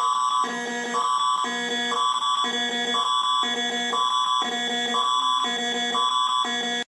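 Canadian emergency alert attention tone: a steady high electronic tone under two lower tone sets that alternate about twice a second. It cuts off suddenly near the end.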